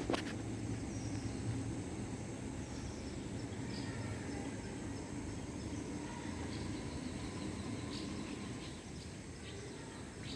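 Outdoor ambience with a steady low rumble, a few faint short bird chirps and a thin steady high insect-like tone; a sharp click at the very start.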